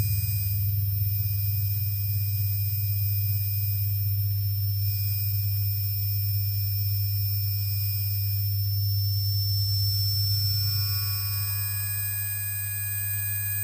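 Electronic drone music from a cassette tape: a steady, heavy low hum with several thin, high, pure tones held above it. About eleven seconds in, a cluster of new higher tones fades in while the low drone eases slightly.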